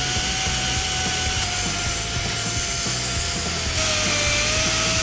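Narrow belt file sander running and grinding the aluminium intake manifold port, a steady high whine over a hiss of abrasion, its pitch dipping a little about four seconds in.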